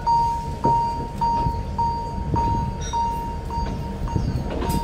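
Railway level-crossing warning bell ringing one steady tone about twice a second, over the low rumble and occasional wheel knocks of a narrow-gauge Alishan Forest Railway train rolling past the crossing.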